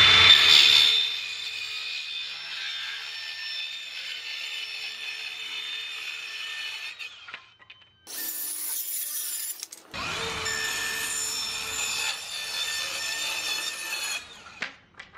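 DeWalt Atomic 20V 4-1/2-inch cordless circular saw cutting half-inch plywood: a steady motor whine with the blade rasping through the wood, loudest as it enters the cut. It stops about seven seconds in. After a brief high hiss, the saw runs through the plywood again from about ten seconds and stops just before the end.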